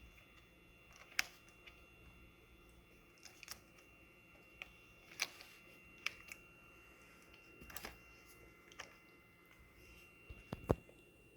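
Irregular light clicks and taps of the string trimmer's handle clamp, bolt and wing nut being handled and fitted, with one duller knock near the end.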